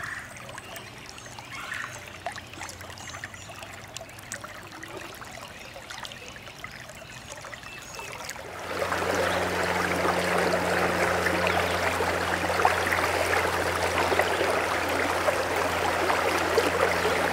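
Creek water flowing over a riffle: a soft, steady rush of current that jumps to a loud, close rushing about halfway through. A low, steady hum sits underneath the louder part.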